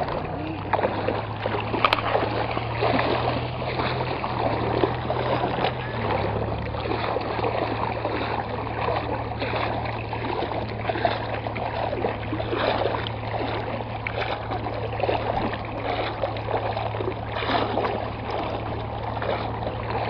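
River water splashing and lapping close to the microphone, over a steady low hum that changes slightly about six seconds in.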